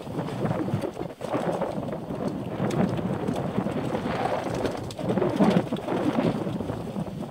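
Wind buffeting the camera microphone: a rough, uneven rumble that swells and fades.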